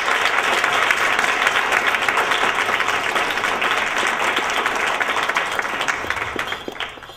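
Audience applauding: dense, steady clapping from many people that dies away near the end.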